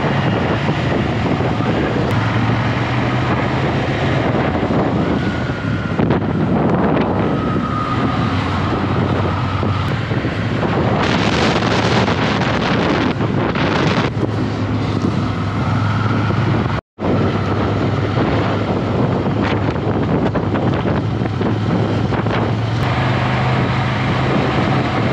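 Ducati Scrambler motorcycle engine running steadily on the move, with wind buffeting the microphone, heavier for a few seconds about eleven seconds in. The sound cuts out for a split second about seventeen seconds in.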